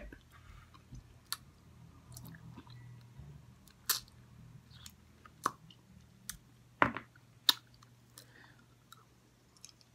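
Close-up mouth sounds of someone eating saucy chicken wings: soft chewing broken by sharp, wet lip and finger smacks every second or so, the loudest two about seven seconds in.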